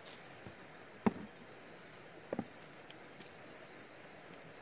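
An insect chirping in a steady, high-pitched pulsing rhythm, about four to five pulses a second. Two light knocks about one second and two and a half seconds in, from seasoning containers being handled on a wooden board.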